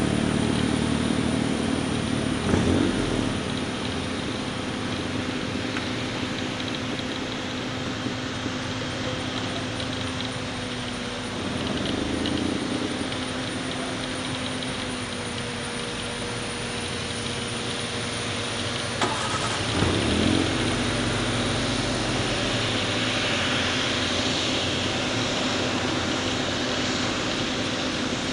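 Boeing 777 jet engines running at low thrust as the airliner rolls slowly along the runway: a steady rush with a low, even hum under it. The hum shifts a little about two-thirds of the way through, and there are brief louder bumps near the start and at that point.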